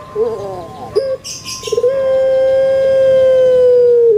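Puter pelung, a domestic ringneck dove, cooing: a few short bending notes, then one long held coo that slowly falls and drops at the end. A brief high, hissy sound comes between them, about a second in.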